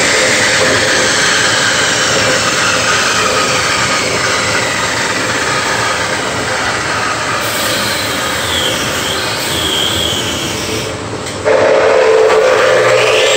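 Husqvarna 110V electric concrete cut-off saw: its whine falls slowly in pitch over the first few seconds as the blade winds down, over a steady hiss. About eleven and a half seconds in, the saw is started again, suddenly louder, with a whine rising in pitch as the blade spins up.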